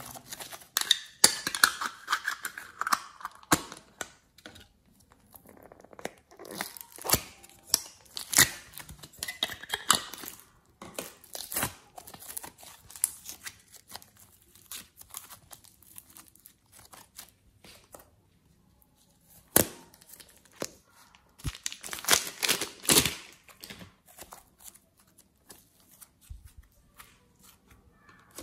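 Hands squeezing a clear plastic mould and kneading soft modelling clay and slime. Irregular crinkly crackles and sharp clicks come in bursts, with a quieter pause about two-thirds of the way through.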